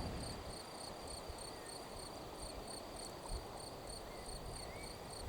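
Cricket chirping in a steady, even rhythm of about three high chirps a second, over faint low outdoor background noise.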